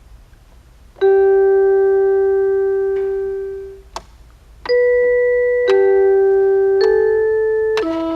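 Meowsic toy keyboard playing in its bells voice: five single electronic bell notes picked out one at a time, each ringing and fading. The first comes about a second in and rings for about two seconds, and the other four follow about a second apart in the second half, with a small click just before them.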